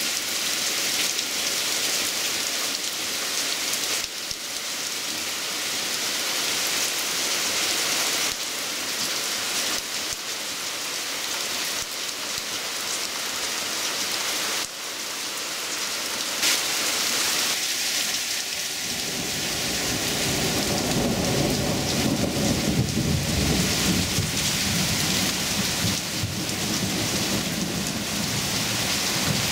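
Heavy downpour hissing steadily on foliage. About 18 seconds in, a long low rumble of thunder sets in and keeps going under the rain.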